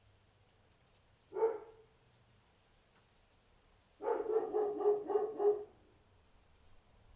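Dog barking: a single bark, then a quick run of about half a dozen barks.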